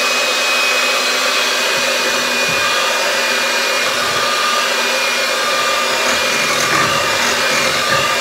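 Electric hand mixer running steadily at one speed, its beaters whirring through cupcake batter in a bowl, with a steady high whine.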